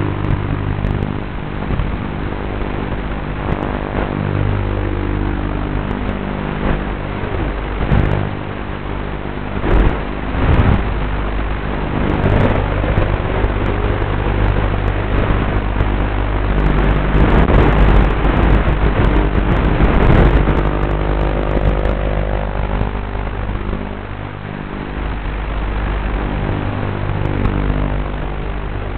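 Racing quadcopter's motors and propellers whining steadily, the pitch shifting with the throttle. The sound surges into quick rising and falling sweeps about ten and twenty seconds in, and is loudest between them.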